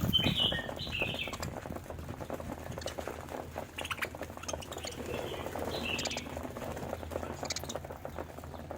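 Budgerigars chirping and chattering, short high chirps mixed with a scratchy, clicking twitter; the loudest chirps come near the start and again about six seconds in.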